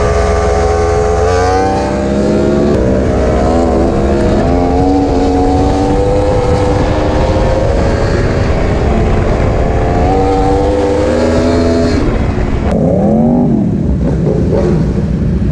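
Vehicle engine running hard at high revs, its pitch held high with small shifts. About twelve seconds in the sound changes abruptly to a series of quick rev rises and falls.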